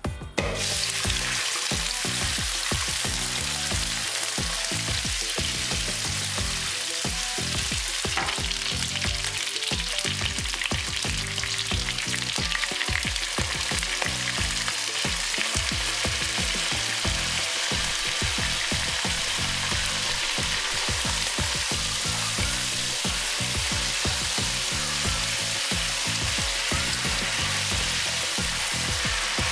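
Food sizzling in hot cooking oil. It starts suddenly about half a second in, as the food goes into the oil, then fries steadily.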